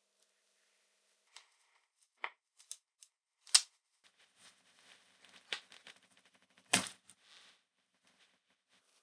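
Handling noises from an old cloth-braided power cord being worked by gloved hands: scattered sharp clicks and taps, the loudest about three and a half and nearly seven seconds in, with soft rustling in between.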